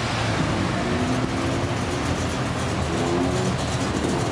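Cars driving slowly past close by, one after another, with their engines running in a steady rumble.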